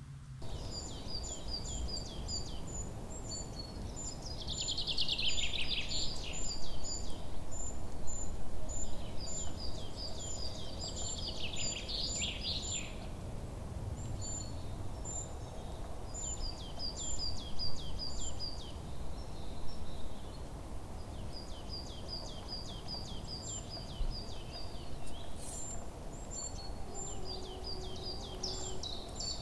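Small birds chirping: a long run of short, high, falling chirps repeated several times a second, with two louder, denser bursts of chattering, over a steady low background noise.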